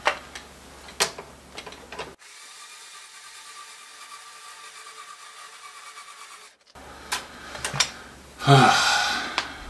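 Small motorised string winder whirring steadily for about four and a half seconds as it unwinds a guitar string from a tuner post, with handling clicks before and after and a louder burst of noise near the end.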